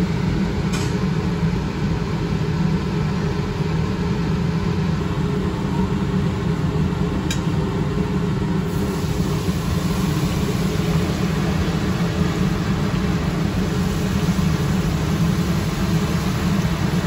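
A steady low mechanical hum, with a brighter hiss of oil sizzling in a deep fryer joining about halfway through as battered chicken skewers fry. Two faint clicks in the first half.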